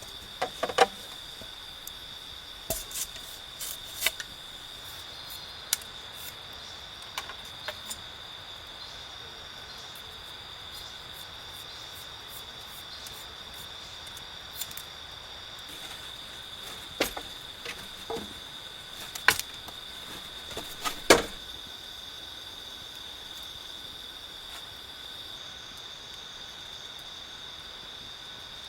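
Insects keep up a steady, high-pitched drone. Scattered sharp knocks and clicks break in now and then, the loudest two near the end of the second third.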